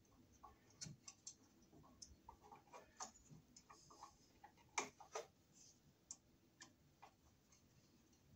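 Faint, irregular clicks and light scrapes of a single-pole wall switch and its wires being pushed into an electrical box and handled with a screwdriver, with two sharper clicks about five seconds in.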